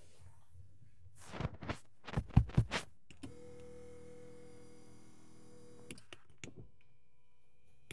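A hand rubs and presses across the seat upholstery of a 2025 Volkswagen Passat Pro, then the electric seat-adjustment motor runs with a steady hum for about three seconds and stops abruptly, followed by a few light clicks from the seat switch.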